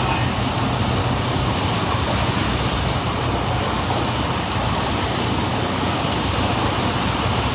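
High-pressure car-wash spray wand jetting water onto the bay floor: a steady hiss of spray with a low hum underneath.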